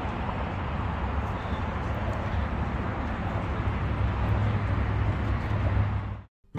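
Outdoor ambience picked up while walking: a steady rushing noise with a heavy low rumble, which cuts off abruptly near the end.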